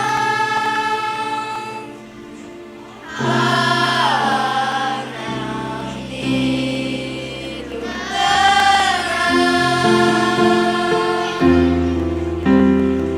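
Elementary-school children's choir singing a sacred song in long held notes, with a brief quieter break between phrases about two seconds in.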